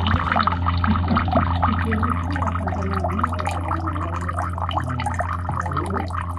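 Water trickling and gurgling from a bamboo spout into a stone water basin (tsukubai), over a steady low hum.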